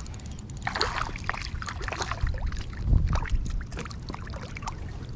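Water splashing and sloshing at the side of a kayak as a small fish is reeled in on a spinning reel, with fast light ticking near the start and a low thump about three seconds in.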